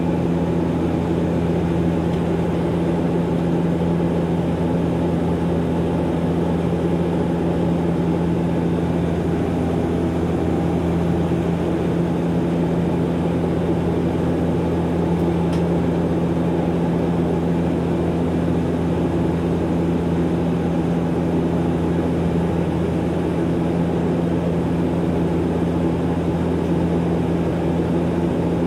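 Cabin noise of a DHC-8-Q400 turboprop in level cruise, heard from a window seat beside the propeller: the PW150A engine and six-bladed propeller give a steady drone with a constant low hum.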